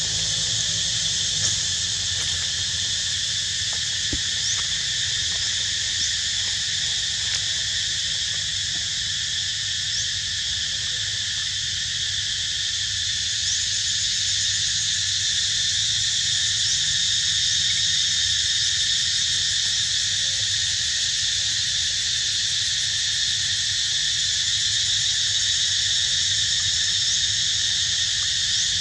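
Dense chorus of forest insects, a steady high-pitched buzzing that holds without a break, over a faint low rumble.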